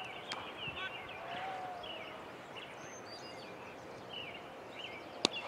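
Steady outdoor background noise with many short high chirps from small birds and faint distant voices. One sharp crack stands out near the end.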